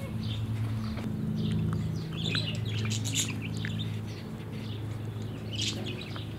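Small birds chirping, with the scattered clicks and crunches of a basset hound puppy gnawing a dry stick, over a low steady hum.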